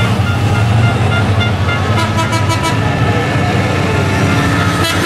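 Scania race truck's diesel engine running hard as it comes through a corner. A series of short, evenly spaced horn toots repeats over it, with a quick rattle of sharp strokes about two seconds in.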